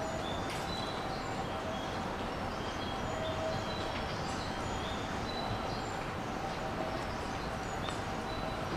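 Busy railway station platform ambience: a steady hum with short, high bird-like chirps scattered through it.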